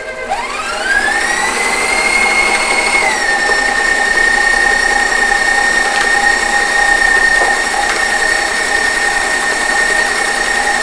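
Electric stand mixer with a wire whisk whipping butter and sugar. Its motor whine rises in pitch as it speeds up over the first two seconds, drops a little about three seconds in, then runs steadily.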